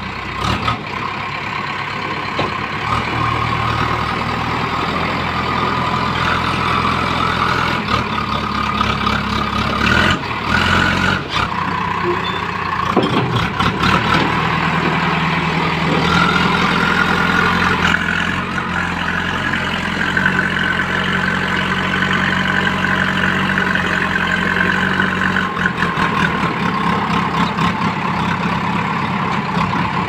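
JCB 3DX backhoe loader's diesel engine running steadily with a higher whine that rises and falls as the loader works, and a few knocks about ten seconds in.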